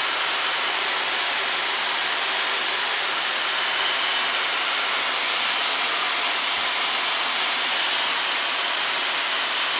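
Steady rushing hiss of a Boeing 737-800's flight deck in flight on approach: air streaming around the nose and windshield together with the cockpit ventilation.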